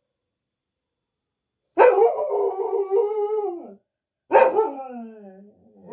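A dog howling: a long howl a little under two seconds in that drops in pitch at its tail, then a second, shorter howl that slides steadily downward, with a third just starting at the very end.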